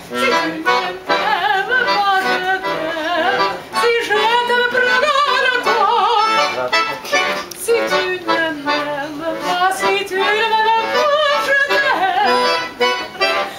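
Classical bel canto singing: one voice holding long notes with a wide, strong vibrato.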